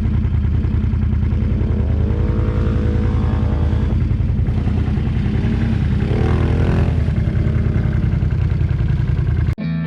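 Can-Am ATV's V-twin engine running under way, revving up as it accelerates about a second and a half in and again around six seconds in.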